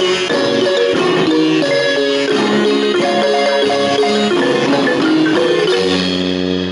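Marimba band playing a lively tune with many quick struck notes over a bass line, then settling on a held, rolled closing chord near the end.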